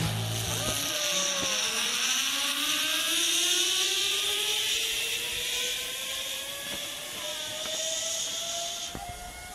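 Zip-line trolley running down a steel cable: a steady hissing rush with a whine that climbs slowly in pitch as the rider gathers speed, cutting off sharply near the end. Background music fades out in the first second.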